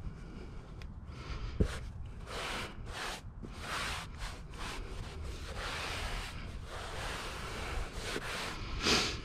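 Hands rubbing and smoothing carpet down onto a ply panel: a series of uneven scratchy brushing strokes, with a sharp knock about one and a half seconds in and the loudest swipe near the end.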